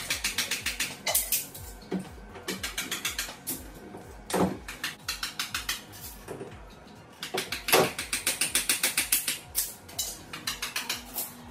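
Quick runs of mechanical clicking, several clicks a second, broken by a few louder scrapes, over background music with a steady low beat.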